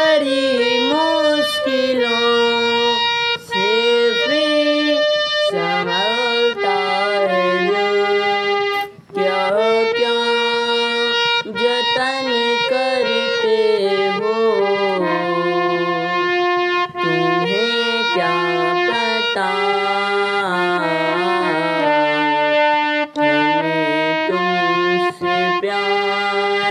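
Harmonium playing held reed chords, with a boy singing a slow Hindi melody over it. His long notes bend and waver in pitch.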